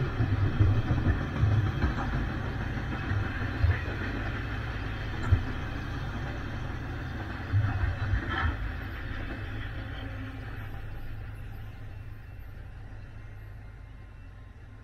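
Union Pacific double-stack intermodal freight train rolling past, its container cars rumbling on the rails with irregular low thumps. The sound fades steadily once the end of the train has gone by, about eight seconds in, and cuts off suddenly at the end.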